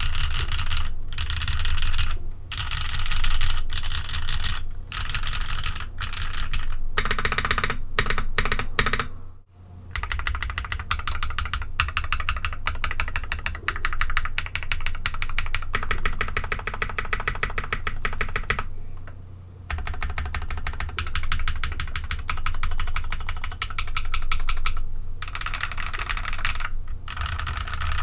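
Fast typing on a mechanical keyboard fitted with ABS keycaps: a dense run of keystroke clacks, broken by short pauses about a third and about two-thirds of the way in.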